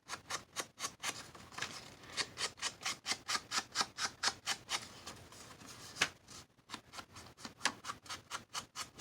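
Ink pad rubbed along the edges of a piece of paper in short, quick strokes, about four a second at first, then more scattered.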